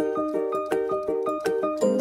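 Background music: a light, bouncy melody of short notes over a steady beat.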